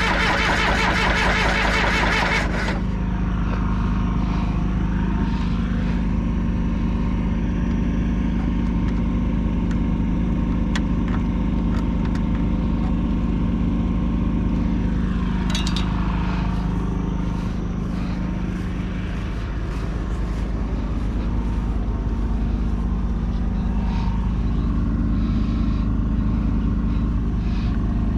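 John Deere 450C crawler dozer's diesel engine running steadily. For the first couple of seconds a louder, harsher noise rides on top of it, then cuts off sharply.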